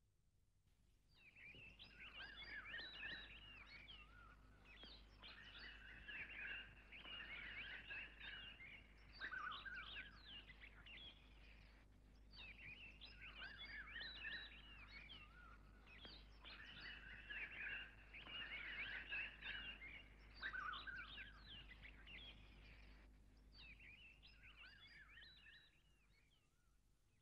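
Faint chorus of small birds chirping and twittering continuously, over a steady low hum. The chirping dies away near the end.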